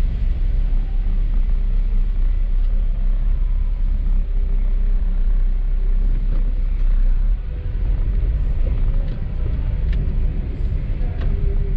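Car driving on a wet road: a steady low rumble of road and engine noise with tyre hiss, and a few faint ticks.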